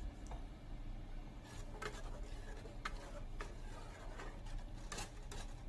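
Spatula stirring thin gravy in a metal cooking pot, giving a few short clicks and scrapes against the pot, over a low steady hum.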